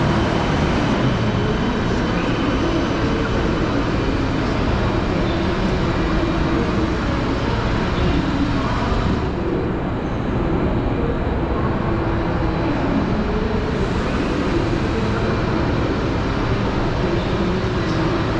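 Busy railway station ambience: a steady low rumble of trains and station machinery, with distant voices faintly mixed in.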